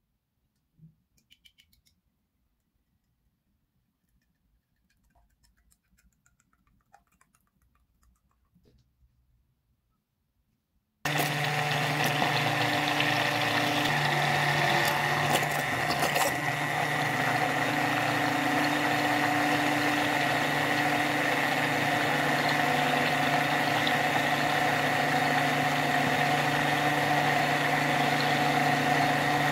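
Electric stick blender running steadily in a tall jug, emulsifying garlic, lemon juice and a thin stream of oil into a creamy garlic sauce. It cuts in suddenly about a third of the way through, after near silence with a few faint small sounds.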